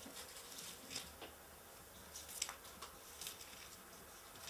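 Faint rustling and several soft papery flicks of Bible pages being leafed through while searching for a verse.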